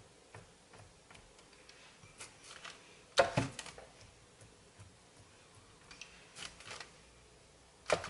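Quiet kitchen handling sounds from hands working at a baking tray: scattered light clicks and taps, a louder clatter about three seconds in, another smaller cluster later, and a sharp knock near the end.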